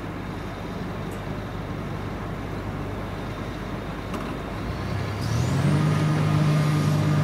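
Diesel engine of a tracked Hitachi EX-series excavator running steadily, then speeding up about five seconds in: a short rising whine, and the engine settles into a louder, higher, steady note.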